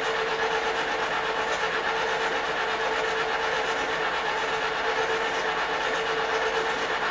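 Two small kettle popcorn machines running while they warm up, their agitator motors and gears turning the stirrers in the empty pots. A steady mechanical whir and rattle with a constant hum; one machine is much noisier than the other.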